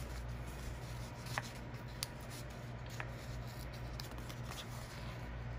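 Faint handling of paper stickers and planner pages: light rustling with a few small clicks, over a low steady hum.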